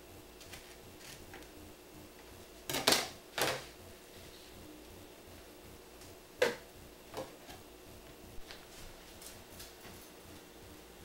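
A kitchen knife tapping and knocking on a plastic cutting board. A few light taps come first, then two louder clattering knocks about three seconds in, and a single sharp knock about six and a half seconds in, with a few smaller knocks after it.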